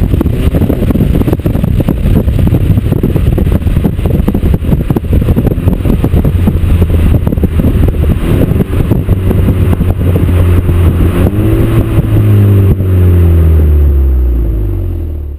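Exhaust note of an Audi TT's 2.0 TFSI turbocharged four-cylinder, heard right at the tailpipe of a 76 mm turboback exhaust with race catalyst and valve-controlled flap while the car drives. It runs rough and dense with the engine pitch shifting around; a loud, deep steady drone near the end fades out.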